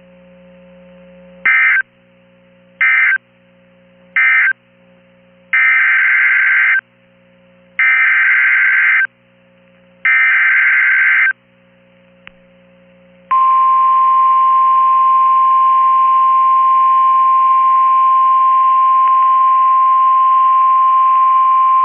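NOAA Weather Radio Emergency Alert System tones: three short warbling data bursts marking the end of one message, then three longer bursts of the digital header for the next severe thunderstorm warning. Then the steady 1050 Hz warning alarm tone, held for about nine seconds.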